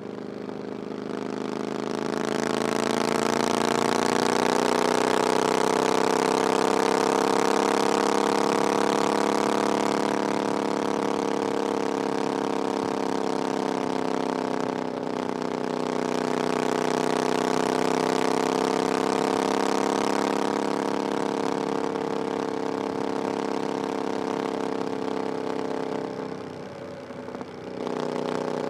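The 900cc parallel-twin engine of a Triumph Bonneville Scrambler 900, running through an aftermarket 'VW pipes' exhaust while the bike is ridden. The exhaust note climbs in pitch and loudness over the first few seconds and then holds steady. It breaks briefly about halfway through, and near the end it drops off for a moment before picking up again.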